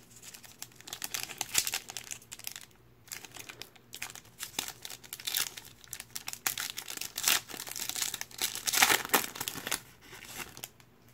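Foil trading-card pack wrapper crinkling and tearing as it is peeled open by hand, in irregular crackles, loudest near the end.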